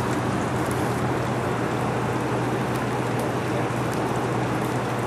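Steady rushing of a river running high and fast with muddy floodwater, at several times its normal flow, with a low steady hum underneath.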